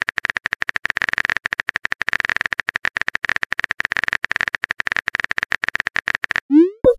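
Smartphone keyboard sound effect: a rapid, steady run of high-pitched key taps as a message is typed. Near the end comes a short rising swoosh and a click, the message-sent sound.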